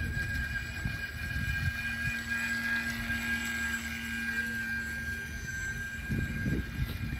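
A radio-controlled model speedboat's motor whining steadily as the boat runs across the pond, with low gusts of wind on the microphone near the start and again near the end.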